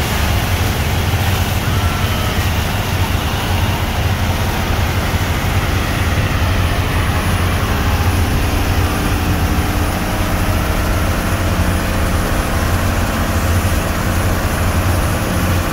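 Engine of a motorized outrigger boat (bangka) running steadily under way: a loud, low, constant drone over a wash of wind and water spray.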